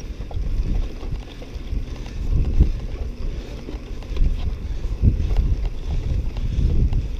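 Wind rumbling on an action camera's microphone as a mountain bike is ridden along a grassy dirt track, with irregular knocks and rattles from the bike going over bumps.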